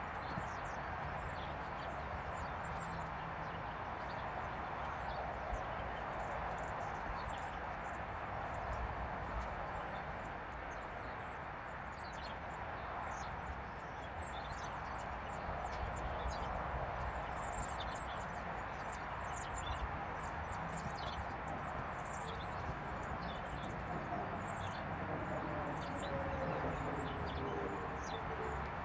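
Small birds chirping again and again over a steady outdoor background hiss, with a faint tone sliding downward near the end.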